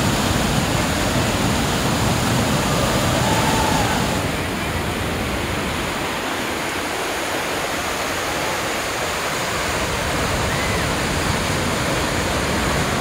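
Steady rushing of churning whitewater in a steep river rapid, dipping slightly in level about four seconds in.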